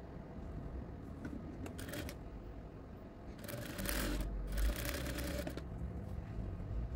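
Industrial sewing machine stitching cotton fabric strips in two short runs of about a second each, separated by a brief pause, with fabric being handled.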